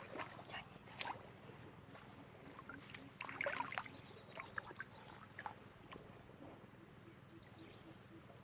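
Faint, scattered chirps and squawks from small wild birds, with a few clicks. The busiest flurry of calls comes a little past the middle.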